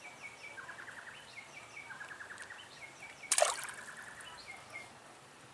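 A small fish dropped back into the water with a brief splash about three seconds in, while birds keep chirping and trilling in the background.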